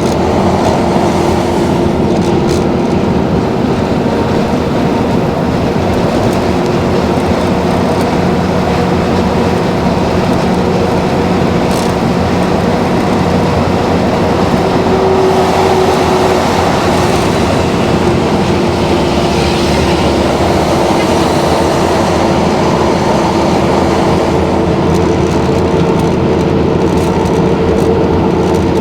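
Mercedes-Benz O-400 bus's OM 447 LA turbodiesel engine running under way: a loud, steady drone with a held tone above it that wavers slightly in pitch.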